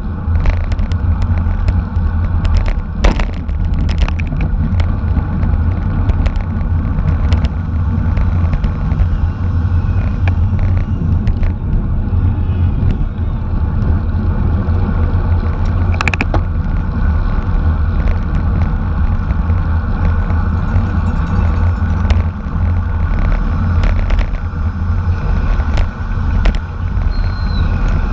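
Wind rushing over the microphone of a camera riding along in a bicycle race, a heavy steady rumble, with occasional sharp clicks and knocks from the bike and road.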